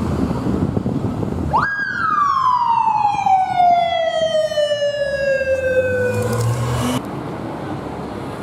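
Police motorcycle siren sounding one wail over street traffic noise: it rises quickly about a second and a half in, then falls slowly over about five seconds, and is cut off abruptly near the end.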